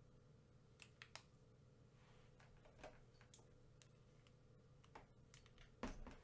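Near silence with a few faint, scattered clicks and crinkles from a foil candy wrapper being handled; the loudest comes near the end.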